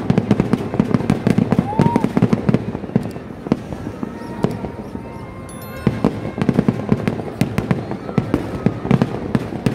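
Kerala temple-festival fireworks (vedikkettu) going off in a dense, rapid barrage of bangs and cracks. The barrage thins out about three and a half seconds in and picks back up about six seconds in.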